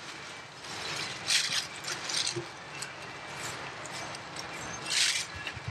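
Cloth wiping over a motorcycle's painted bodywork, rubbing off and working in excess ACF50 anti-corrosion spray: short rustling strokes about a second and a half in, at two seconds, and again near the end.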